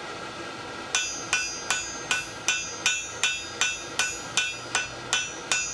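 Hand hammer blows on glowing-hot steel over an anvil, shaping it into a curve. The blows start about a second in and come evenly, about two and a half a second, each with a bright metallic ring.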